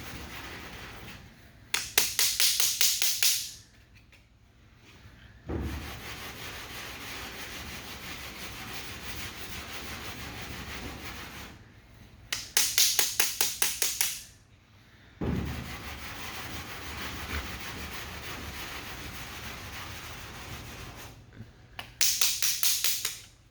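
Sandpaper on a hand sanding block scraping over lacquer primer on a body-filler repair. Three loud spells of quick, short back-and-forth strokes, several a second, with steadier, quieter sanding strokes between them.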